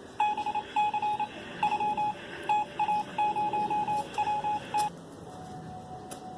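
Morse code beeps: a single steady tone keyed on and off in a run of short and long pulses, dots and dashes, stopping about five seconds in.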